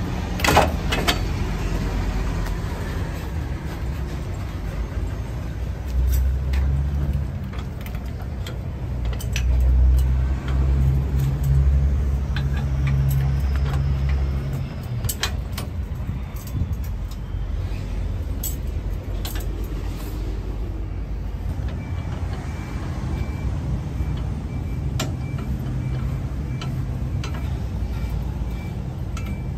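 A vehicle engine runs steadily with a low rumble that swells for stretches, about 6 to 14 seconds in and again near 24 seconds. Over it come scattered metal clunks and clicks as the crane's manual stabiliser leg is slid out, pinned and wound down with its hand crank.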